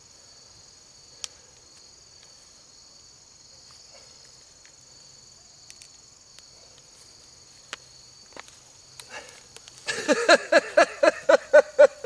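Insects, crickets by their sound, trilling steadily and high, with a few faint clicks and rustles as sweet potatoes are pulled from the soil by hand. About two seconds before the end, a loud, fast run of pitched pulses, about six a second, takes over.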